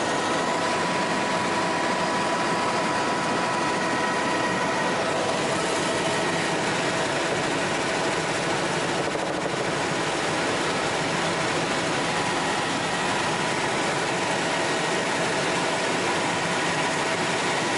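Bell 206L4 LongRanger helicopter in cruise heard from inside the cabin: a steady rush of rotor and airflow noise with a constant high whine from the turbine engine and transmission.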